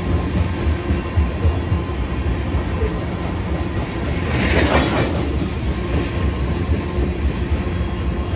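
Freight train tank cars rolling past, their steel wheels on the rails making a steady low rumble. A brief louder, brighter rush of noise comes about halfway through.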